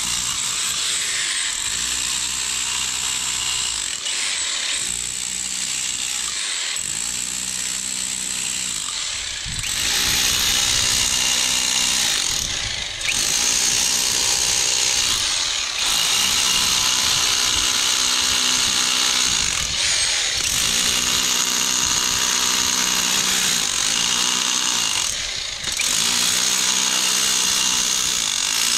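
A handheld power tool running under load against the stones and mortar of an old house foundation. It runs in long stretches with a high whine, easing off briefly several times.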